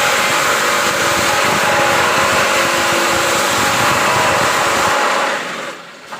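A concrete-block (batako) press machine running loudly and steadily, a dense mechanical rattle with a faint hum in it, then winding down about five seconds in.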